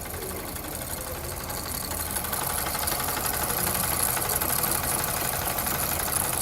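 Small Jensen live-steam model engines running steadily: a fast, even mechanical chatter with a high steam hiss over it, growing a little louder about two seconds in.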